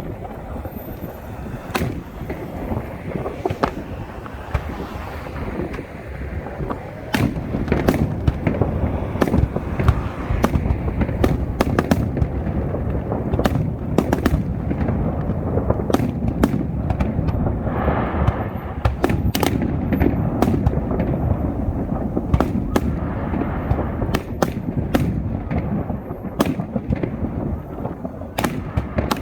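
Aerial fireworks display: a continuous rumble of overlapping booms with many sharp crackling reports, growing denser about seven seconds in.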